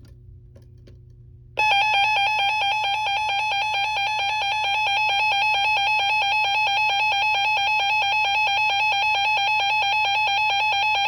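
Weather radio's alert alarm going off for a severe thunderstorm warning: a loud, rapidly pulsing electronic beep that flips between two pitches. It starts abruptly about a second and a half in, holds steady, and cuts off at the end.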